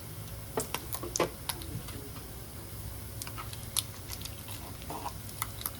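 Bacon frying in a pan, its fat popping and crackling in irregular sharp pops over a low steady hum.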